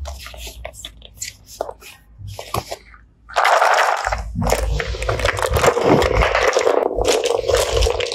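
Cardboard activity cards handled with light rustles and clicks. About three and a half seconds in, a box of plastic Mathlink cubes and number pieces is tipped out onto the table in a long, loud clatter of many small plastic pieces.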